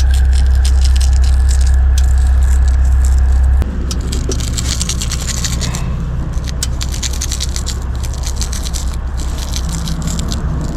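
Sausage stuffer filling 19 mm snack-stick casings with ground meat. A steady low hum runs, then drops and shifts pitch about three and a half seconds in, over continual crackling and scraping as the meat is forced through into the casing.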